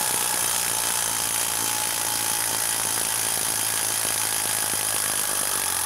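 Craftsman 20V brushless impact driver hammering without a break under heavy load as it backs a large screw out of a wood stump.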